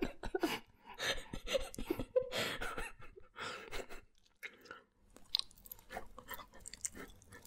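Close-miked chewing of candy: irregular mouth clicks and light crunches, quieter for a moment about four seconds in.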